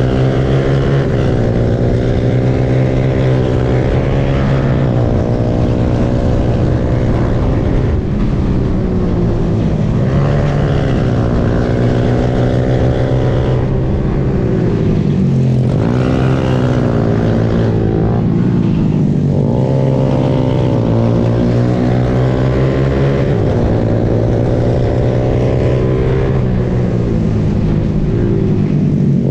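Honda Grom's 125 cc single-cylinder four-stroke engine at racing revs, its note rising and dropping again and again as the rider accelerates through the gears and backs off for corners.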